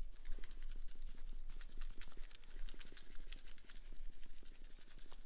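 Shaker bottle of dry spice rub shaken over and over, its granules rattling in a quick run of small ticks.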